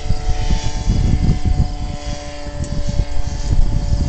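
Distant powered hang glider's engine droning at a steady pitch, with wind buffeting the microphone in gusts, which make the loudest part.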